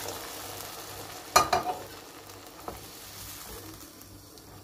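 Water poured into a hot pot of beans fried in tomato paste, sizzling and hissing and slowly dying down, while a wooden spoon stirs. About a second and a half in, the spoon knocks sharply against the pot twice, with a lighter knock a second later.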